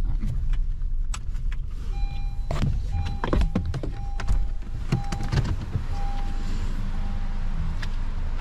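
Car door being opened and someone climbing out: sharp clicks and knocks of the door latch and seatbelt, over a low rumble. A repeating warning chime beeps with short gaps while the door is open.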